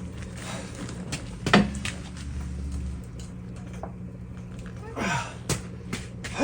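Someone straining to push a very heavy load: short grunts and breaths, twice, with a few knocks, over a steady low hum.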